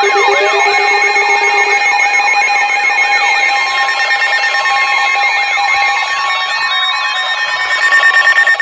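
Several electronic emergency alert alarms sounding at once. A rapidly repeating sweeping tone, about three sweeps a second, fades out after about six seconds. Steady tones run underneath, a low pulsing tone stops about two seconds in, and a tone glides upward at the very start.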